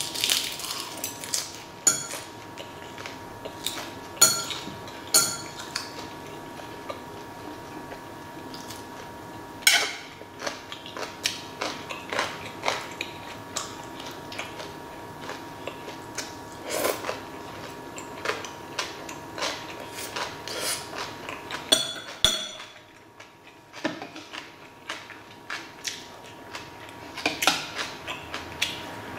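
Chopsticks and a metal spoon clicking against metal trays and dishes in sharp, irregular taps, with chewing between the taps.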